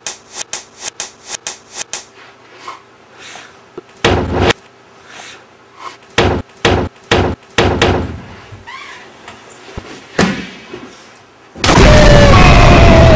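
A short clip stuttered in a fast loop, about four repeats a second, then a string of sharp hits as a person is struck and slammed against a door: a loud bang, four quick blows, and one more a couple of seconds later. Near the end a sudden, very loud explosion blast with wavering tones over it takes over.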